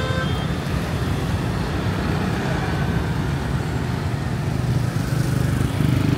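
Steady city road traffic: a continuous low rumble of engines and tyres.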